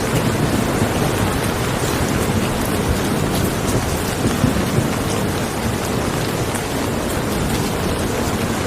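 Steady heavy rain, a dense even hiss with individual drops ticking through it and a deep rumble underneath.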